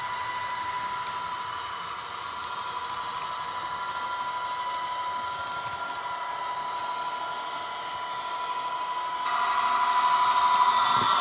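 Model Class 66 diesel sound from a Soundtraxx Econami sound decoder played through the locomotive's small speaker: a steady engine drone with a humming tone, fainter while the loco is away round the layout and suddenly louder about nine seconds in as it approaches.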